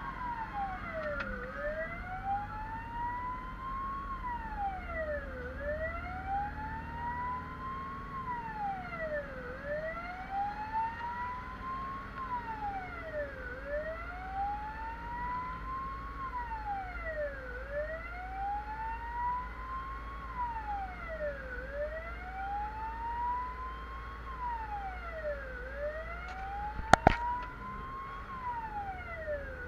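Fire engine's wail siren heard from inside the cab over the truck's engine and road rumble. Each wail climbs slowly for about two and a half seconds, then drops quickly, repeating about every four seconds. Two sharp clicks sound near the end.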